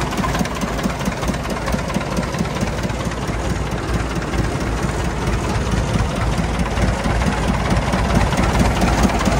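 Massey Ferguson 185 tractor's four-cylinder diesel engine idling steadily.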